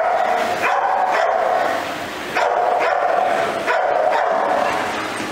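Protection-trained dog barking repeatedly at a decoy, the barks coming close together.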